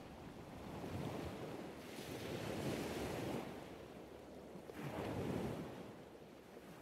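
Faint rushing noise, like surf or wind, that swells and fades about three times.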